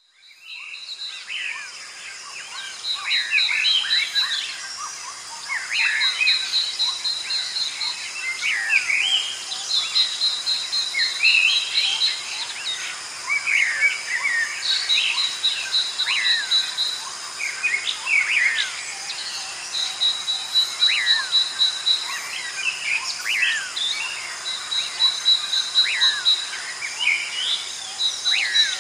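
A chorus of songbirds chirping, many quick downward-sweeping notes overlapping, with a rapid high trill recurring every few seconds. A steady high-pitched drone, typical of insects, runs underneath; the sound fades in over the first second.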